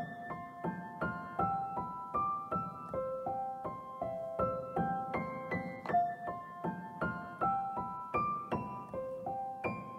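Background piano music: a gentle melody of single notes, about two to three a second.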